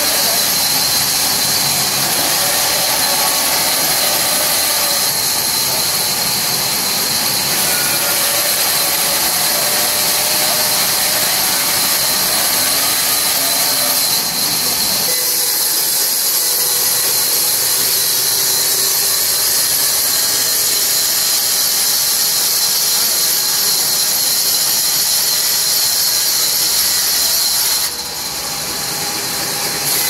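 Sawmill vertical band saw running and cutting through a large log, a loud steady machine noise with a strong high hiss.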